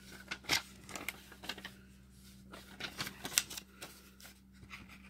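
Tombow Play Color Dot marker tips on paper: a dozen or so short, irregular taps and scratches as it makes dots and strokes.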